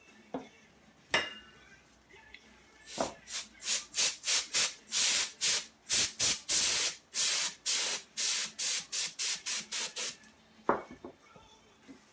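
Compressed air fired in short bursts through a thin straw nozzle to push wet alcohol ink across a canvas: about twenty quick hissing blasts, some three a second, for about seven seconds. A few light knocks come before and after as the can is picked up and set down.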